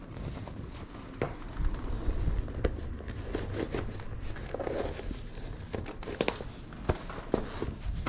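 Footsteps walking across a floor indoors, with scattered light knocks and clicks at irregular intervals.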